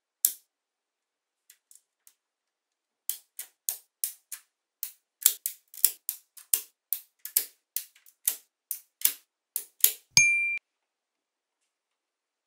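Small magnetic metal balls clicking sharply together as they snap into place, about two clicks a second, ending in a short bright ring about ten seconds in.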